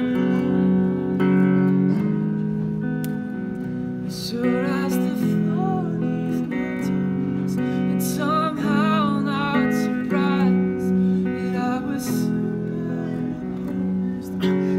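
Clean electric guitar playing slow, ringing chords, each held for a second or two. In the middle a wavering melody line rises over the chords.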